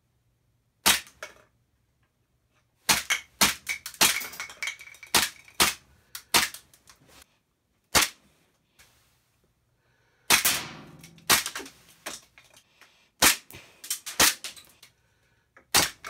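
Gas airsoft pistol firing irregular single shots, some in quick runs, with BBs clattering against plastic bowling-pin targets and knocking some of them off plastic shelving.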